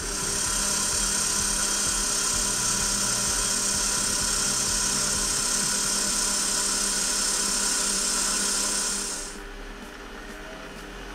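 Metal lathe turning a brass bar: a steady, high-pitched hiss from the cut over the hum of the spinning lathe, stopping suddenly about nine seconds in and leaving only the quieter running hum.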